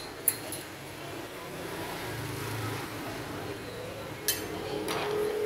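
A metal spoon clinks sharply against a ceramic ramekin and plate twice, once just after the start and again about four seconds in, over a steady background hum. A steady humming tone comes in near the end.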